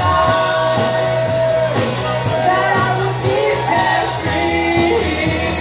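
Live worship band and singers performing an upbeat contemporary worship song, with a steady bass line and drums under the lead vocal.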